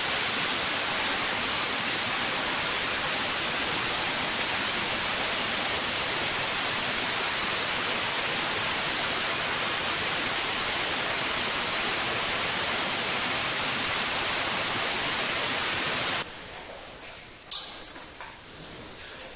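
Steady hiss of water falling and spraying down a cave shaft. It drops away suddenly about sixteen seconds in, leaving a few sharp clicks and knocks.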